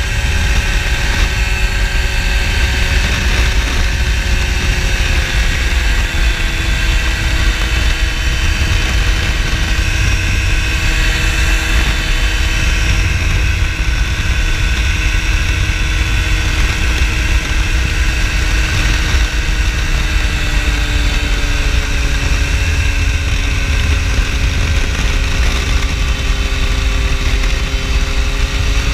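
Phantom X1 ultralight's two-stroke engine and propeller running steadily in flight, with heavy wind rumble on the microphone. The engine pitch eases down a little about six seconds in and again around twenty seconds in.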